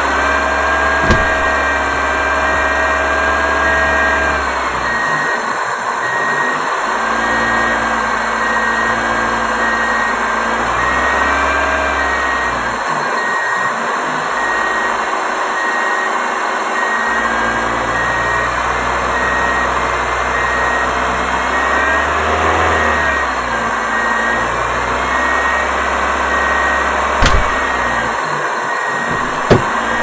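A steady mechanical drone, like a machine or engine running, with faint whining tones that shift in pitch now and then. There is a sharp knock about a second in and a couple more near the end.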